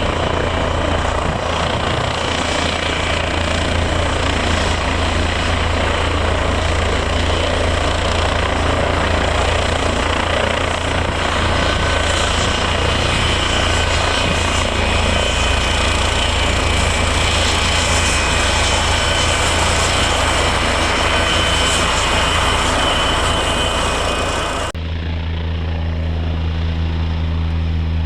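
Offshore transport helicopter running loud and close, with a steady low rotor drone under a dense turbine and blade rush. About 25 seconds in, the higher rushing part drops away suddenly, leaving a lower steady hum.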